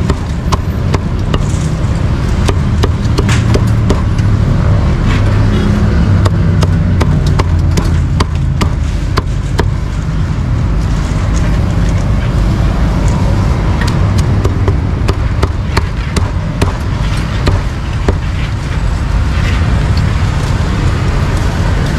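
Steady street-traffic rumble, with a cleaver striking a chopping board again and again in sharp, irregular knocks.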